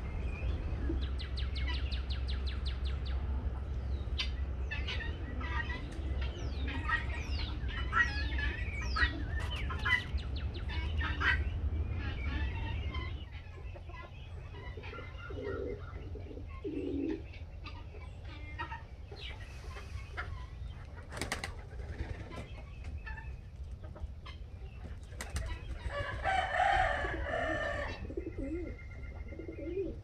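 Birds chirping in quick, sharp calls through the first half, over a low rumble. A couple of short low calls follow, and about 26 seconds in comes a burst of wing flapping as a pheasant flies up onto a perch.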